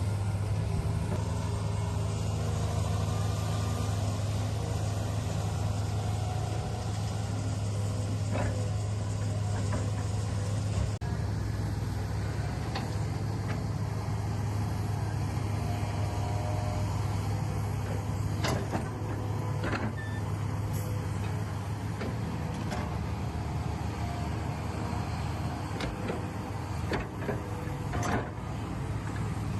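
Huina 1593 radio-controlled toy excavator working: a steady low hum, with scattered clicks and knocks that come more often in the second half.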